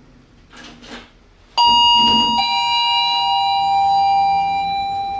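Lift's electronic two-tone chime: a higher ringing note, then a lower note about a second later, both ringing on and slowly fading.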